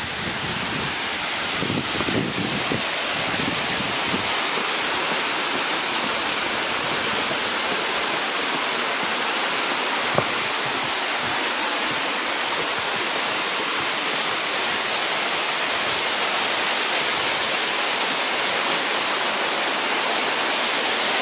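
Carson's Falls, a waterfall on Mount Kinabalu's summit trail: falling water rushing steadily, a little louder over the first couple of seconds and then even.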